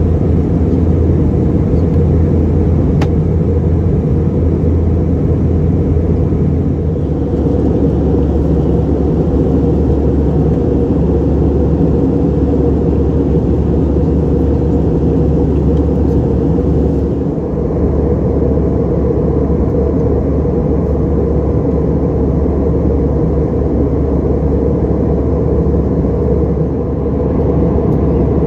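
Steady cabin noise of an Airbus A321-231 in flight, heard at a window seat beside the wing: a loud, even rumble of its IAE V2500 engines and the airflow over the fuselage.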